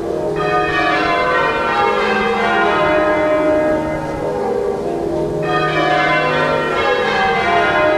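Church bells ringing a continuous peal, several bells striking in turn so that their ringing tones overlap.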